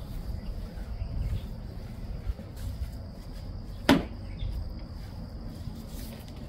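Paint roller being worked over a concrete floor with terrazzo-effect floor paint, a steady rough low rumble, with one sharp knock about four seconds in. A faint steady high whine sits in the background.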